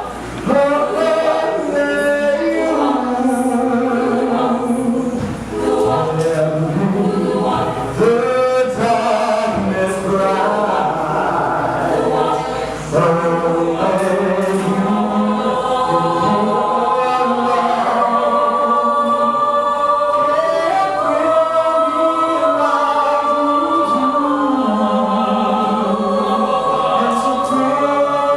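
A choir singing in several parts, with sustained notes and voices moving together.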